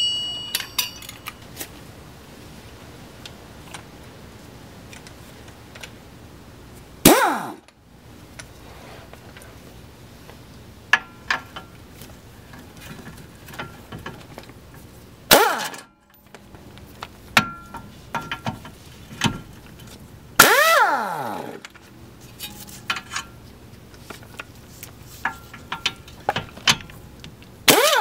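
Air impact wrench spinning off the nuts and bolt that hold the lower ball joint to the control arm, in four short bursts whose whine glides in pitch, with light clinks of metal between the bursts.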